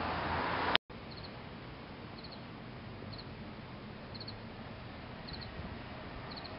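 Steady background hiss with a faint, high, short double chirp repeating about once a second. The sound cuts out completely for an instant just under a second in.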